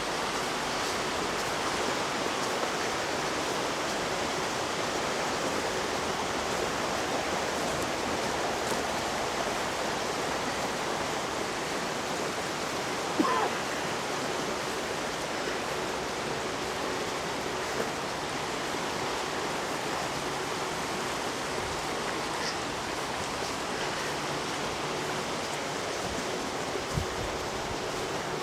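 River water rushing steadily over rocks. A short, sharp sound rises above it about halfway through.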